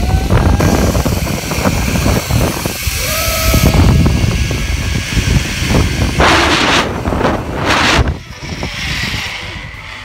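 Heavy wind buffeting on a phone microphone during a fast zip-line descent. It is loudest and roughest in the low end, with surges about six to eight seconds in, and eases after about eight seconds.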